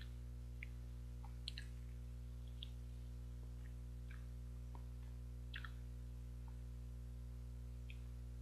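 Close-miked mouth sounds of eating an injeolmi ice cream bar: short, soft wet smacks, licks and small bites scattered about once a second. They sit over a steady low electrical hum.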